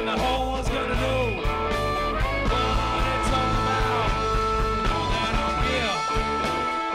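Live band playing a blues number: amplified harmonica played into a vocal microphone, with bending and held notes, over electric guitars, bass and a steady drum beat.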